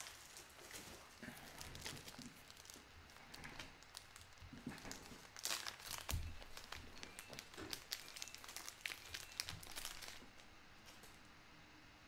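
Plastic card sleeves and packaging crinkling and rustling as they are handled, in irregular bursts that are busiest in the middle and thin out near the end.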